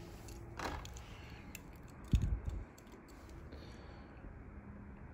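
Handling noise from a die-cast toy car being picked up and turned in the hand: a sharp click, a few faint ticks, and a dull low thump about two seconds in.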